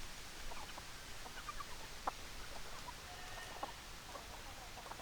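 Chickens clucking softly, with short scattered calls and a faint click about two seconds in.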